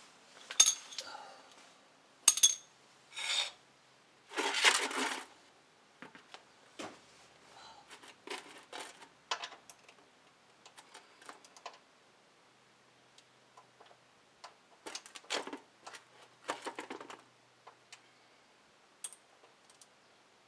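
Socket wrench clicking and clinking against metal as it is fitted to and worked on a car's oil drain bolt, in short irregular bursts. About four to five seconds in, a scrape of about a second as the plastic drain pan is slid across the concrete floor under the bolt.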